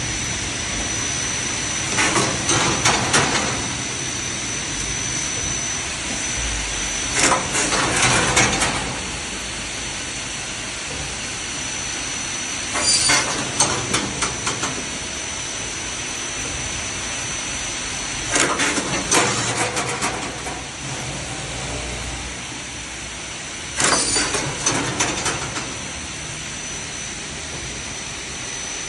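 Artichoke peeling machine running with a steady hum and a thin high whine. About every five and a half seconds it gives a burst of metallic clattering lasting a second or so, five times in a regular working cycle.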